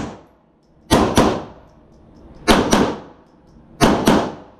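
Handgun fired in three quick double taps: two shots about a quarter second apart, then a pause of about a second before the next pair.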